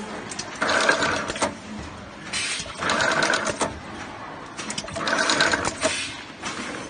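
Automatic wire-harness spot-taping machine running its wrapping cycle three times, each cycle about a second of motor whirring with rapid clicks, roughly two seconds apart.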